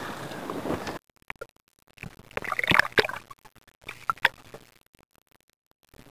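Water splashing at the surface as a released fish swims off, then after an abrupt cut, short bursts of water sloshing and gurgling against a camera at the waterline, about two seconds and four seconds in.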